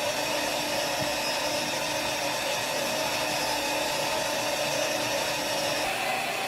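CNC machine spindle cutting a carbon fiber part: a steady whine of several held tones over a dense cutting hiss, with one high tone dropping out near the end.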